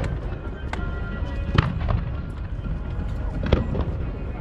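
Aerial fireworks bursting: several sharp bangs, the loudest about a second and a half in, over background music.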